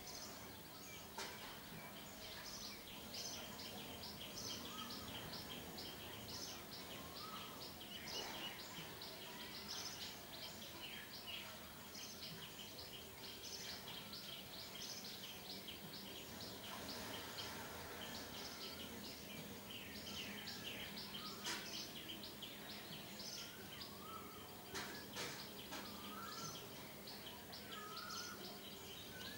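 Birds chirping, many short high chirps in quick succession, with a few brief whistled notes toward the end.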